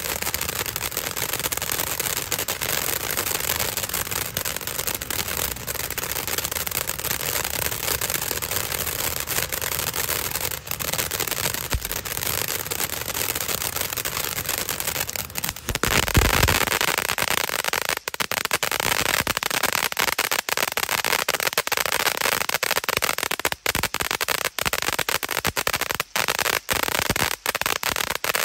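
'Wrath of the Beast' ground-fountain firework spraying sparks with a dense, continuous crackle and hiss. About halfway through comes a louder, deeper burst. After it the crackling breaks into rapid sharp pops with brief gaps.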